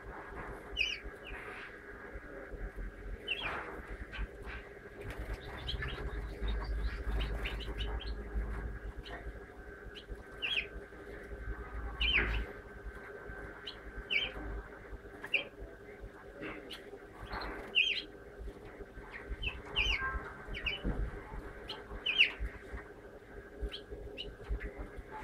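A house finch giving short, high chirping calls, some falling in pitch, about one a second, with wing flutters as it moves about.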